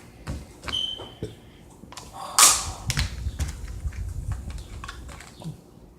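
Plastic Play-Doh tubs being handled and opened: scattered clicks and knocks of plastic on a hard surface, a loud rustling clatter about two and a half seconds in, then a run of dull knocks.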